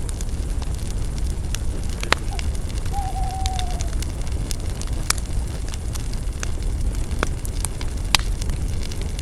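Campfire of burning spruce branches: a steady low rush of flame with frequent sharp crackles and pops. A brief, slightly falling whistle comes about three seconds in.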